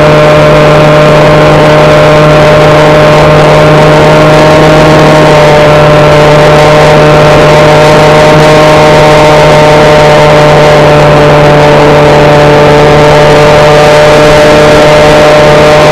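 RC plane's electric motor and propeller running in flight, recorded by the onboard camera: a steady, very loud whine with a low hum under it, its pitch holding nearly level.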